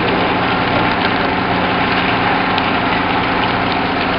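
An engine idling steadily, with water from a hose splashing onto wet concrete.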